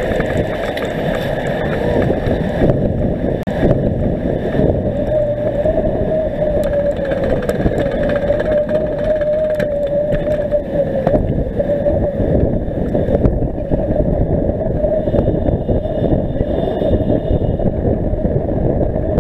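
Wind and road noise on a bicycle-mounted camera's microphone while riding: a steady rumbling hiss with a faint wavering hum.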